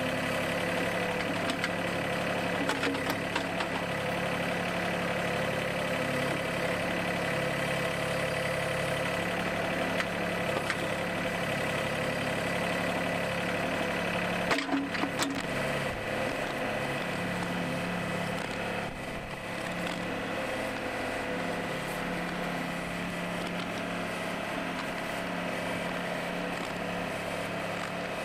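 Mahindra 1626 compact tractor's diesel engine running steadily while working in the clay, with a few sharp knocks about halfway through and a slight change in the engine note a few seconds later.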